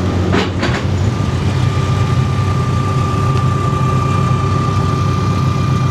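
A vehicle engine running steadily at low speed, with a steady high-pitched whine over it. A brief rustle or scrape sounds about half a second in.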